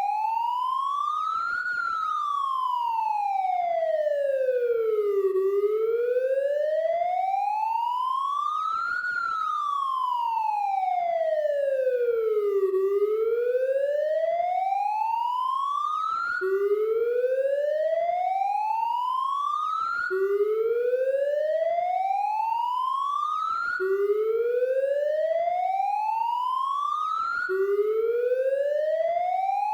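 Police siren wailing, its tone sliding slowly up and down, each rise and each fall taking about four seconds, twice over. About halfway through it changes to rising sweeps that drop back abruptly and start again about every four seconds.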